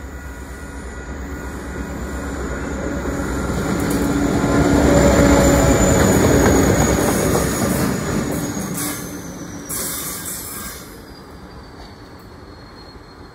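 A Pacific National diesel locomotive hauling locomotive 8649 passes at speed. Its engine rumble and wheel noise build, are loudest about five to seven seconds in, then fade as it moves away. A thin, high whine drops in pitch as the train recedes.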